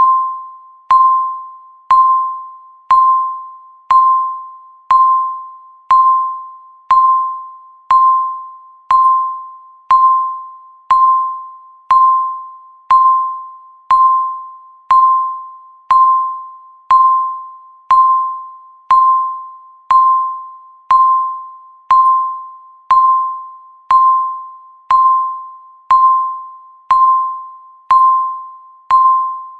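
Countdown timer beeping once every second, a steady run of identical tones, each striking sharply and fading away like a chime.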